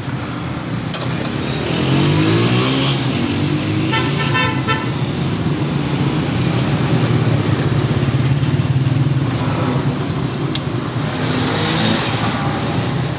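Road traffic: a motor vehicle engine running close by, rising in pitch about two seconds in, with a horn honking briefly about four seconds in.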